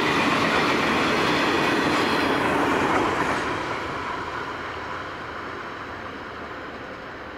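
Grain hopper wagons of a freight train rushing past at speed, their wheels loud on the rails. About three seconds in, the noise drops away as the last wagon clears, leaving a quieter, fading rumble.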